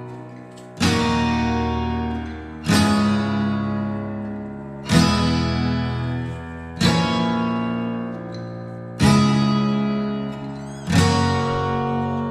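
Background music: an acoustic guitar strumming a chord about every two seconds, each chord ringing out and fading.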